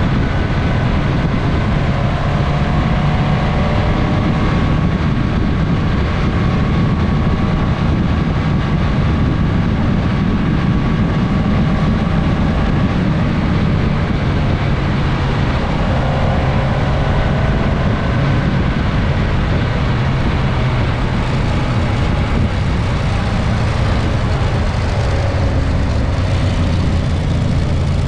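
Suzuki GSX-S1000S Katana motorcycle's inline-four engine running steadily while riding, heard on board with wind and road noise. A few fainter rising and falling engine tones, most likely the other bikes in the group, come through partway in.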